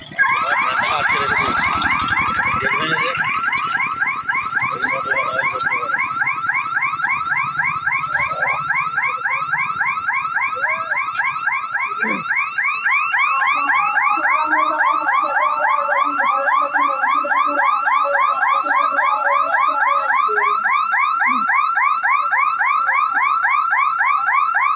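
Railway level-crossing warning siren: an electronic warble of quick rising sweeps, several a second, that starts abruptly and sounds without a break.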